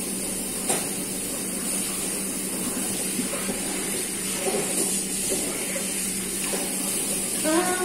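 Kitchen tap running steadily into a stainless-steel sink, with water splashing as a piece of raw chicken is rinsed under the stream.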